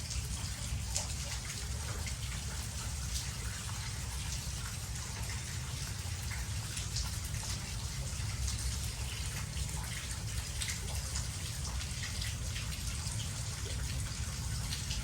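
Steady rain falling, with many individual drops ticking sharply on nearby surfaces, over a steady low rumble.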